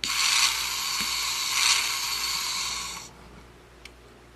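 Electronic sound effect from a Cars 2 Lights and Sounds Rod Redline toy car's tiny speaker: a thin, hissing blast that starts suddenly, holds about three seconds and fades out, set off by pressing the toy's back window.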